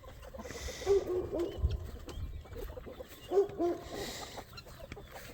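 Chickens giving short, low, soft calls as they settle into the coop, in three quick clusters about two seconds apart.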